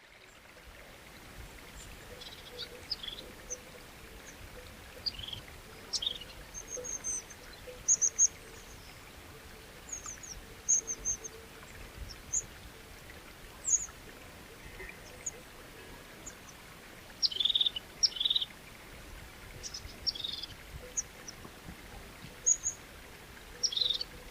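Birds chirping in short, high bursts, scattered irregularly and clustered in places, over a steady background hiss.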